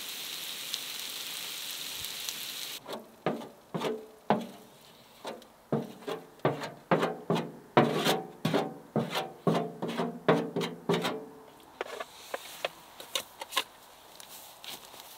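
Beef, onions and potatoes sizzling on the steel top of a wood-burning tent stove, cut off suddenly. Then about twenty quick scrapes of a utensil across the metal stove top, two or three a second with a slight metallic ring, as the food is scraped into a small pot. Fainter clicks and rustling near the end.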